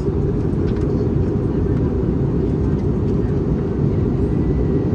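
Steady cabin roar of an Airbus A321neo airliner, engine and airflow noise heard from inside the passenger cabin, low and even.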